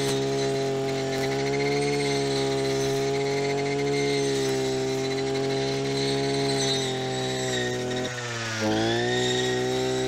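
Backpack engine of a shaft-type wheat reaper running steadily at high speed. About eight seconds in, the engine speed dips briefly and then picks up again.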